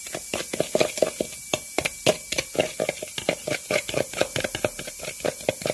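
Metal spoon stirring a thick salt, pepper and chili dipping sauce in a bowl, scraping and clicking against the bowl several times a second.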